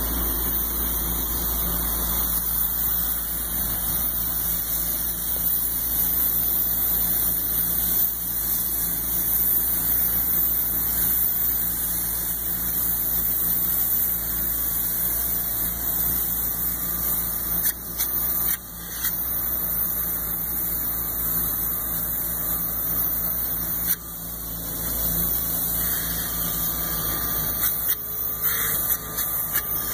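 Polyurea spray gun hissing as it sprays coating, over an engine running steadily. The spray drops out briefly a couple of times, once shortly past halfway and again later.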